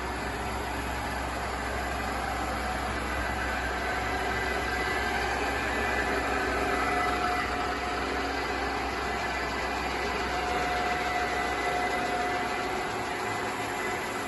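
Hitachi Seiki 3ML-P horizontal milling machine running with its spindle at high speed: a steady, even machine hum with faint whines and very little noise, a sign of the machine's good condition. The deepest part of the hum drops away near the end.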